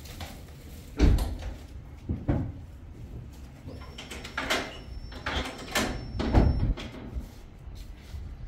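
A handful of sudden thumps and knocks, like doors or heavy objects being shut or set down, the loudest about a second in and again just after six seconds, with handling noise between them.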